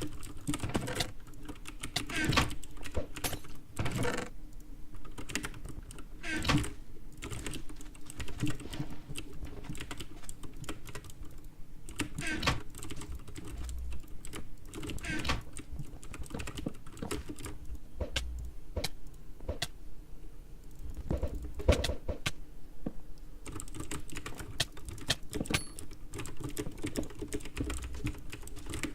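Typing on a computer keyboard: a quick, uneven run of key clicks with a few louder strikes along the way.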